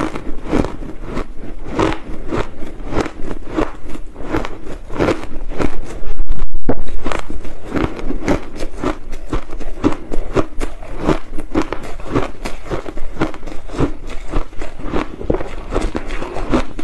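Crushed ice being chewed close to a clip-on microphone: a steady run of crisp crunches, about two to three a second. About six seconds in there is a brief, very loud, muffled sound.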